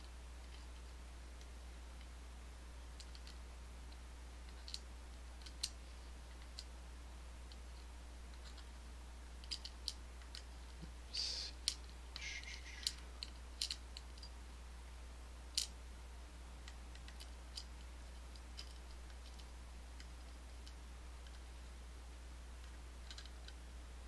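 Small metal pins and parts from a disassembled Assa Twin Exclusive lock cylinder clicking lightly as they are handled and set down on a work surface. There are scattered faint clicks, with a busier run of clicks and a short scrape about halfway through.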